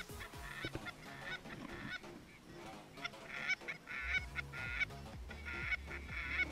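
Canada geese honking, many short calls one after another in an overlapping chorus, with a low steady hum joining about four seconds in.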